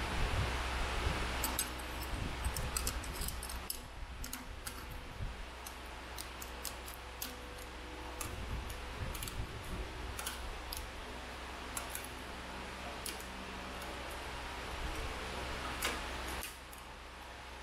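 Small metal clicks and taps as the parts of a Honda throttle assembly are handled and fitted onto a chrome motorcycle handlebar, irregular and scattered throughout, over a steady hiss that drops away near the end.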